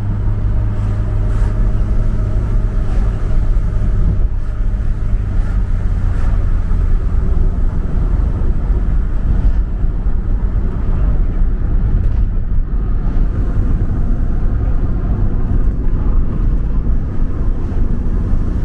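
Steady low rumble of a car's engine and tyres heard from inside the moving car, with a low engine hum most noticeable in the first few seconds.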